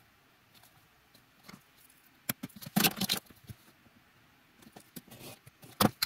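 A strip of leather being trimmed with a knife along a clear plastic ruler on a cutting mat, and the ruler and leather being handled: scattered clicks, scrapes and rustles, with a sharp click about two seconds in, a louder cluster about three seconds in and another just before the end.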